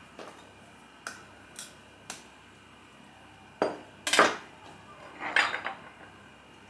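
Kitchen knife and utensils knocking and clinking against a wooden cutting board and dishes as an avocado is cut: three light taps, then louder clatters twice a little past halfway and again about five seconds in.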